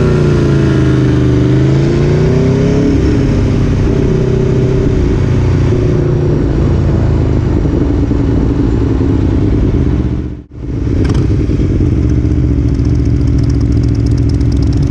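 Aprilia Tuono V4 1100's V4 engine running as the motorcycle rides in traffic, its pitch rising and falling over the first few seconds, then holding steady. The sound dips out briefly about ten seconds in and the engine comes back steady.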